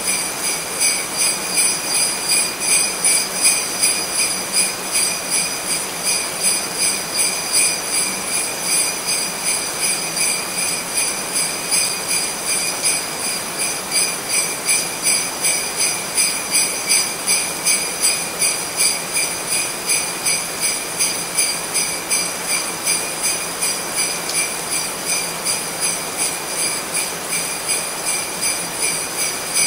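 Jingle bells shaken in a steady, even rhythm, about two shakes a second, ringing on without a break.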